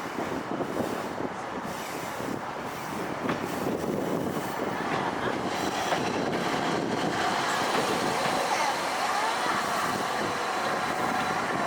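Toden Arakawa Line streetcar running along the track, its noise growing louder as it comes closer.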